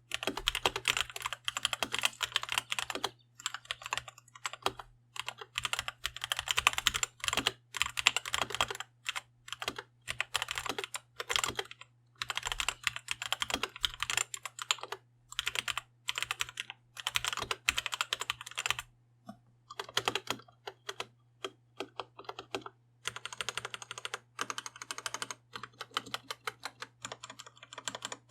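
Typing on a Red Square Keyrox TKL mechanical keyboard with Gateron Red linear switches. Rapid runs of keystrokes come in bursts of a second or two, with short pauses between.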